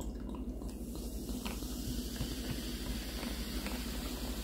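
Clearly Canadian Orchard Peach sparkling water poured from its bottle into a glass tumbler, fizzing with a steady hiss of bubbles.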